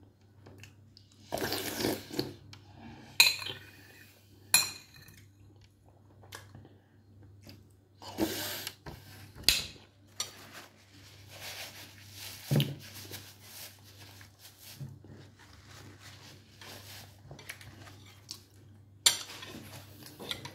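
Cutlery clinking and scraping against a bowl during a meal: scattered sharp clinks, the loudest about three seconds in, near five seconds and near the end, between short bursts of scraping.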